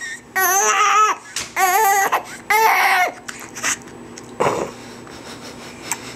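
Newborn baby crying from hunger in three short wavering wails, then going quiet about three seconds in as he takes the bottle.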